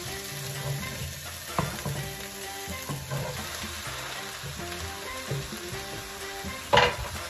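Red onion slices sizzling in a frying pan as baked tilapia fillets are slid in and pushed into place with a spatula, with a few light clicks and one sharp clack near the end. Background music with held notes plays underneath.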